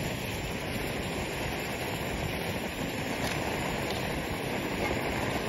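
Multi-fuel camp stove burning gasoline with an orange flame while it warms up: a steady rushing noise, with wind buffeting the microphone underneath.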